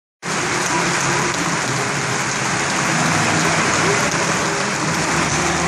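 Stadium crowd noise: a steady din of many spectators' voices blending into one dense hiss.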